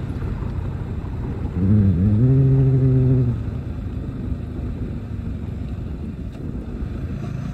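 Steady rumble of a moving vehicle, engine, tyres and wind running together. About two seconds in, a man's voice holds one short hummed note.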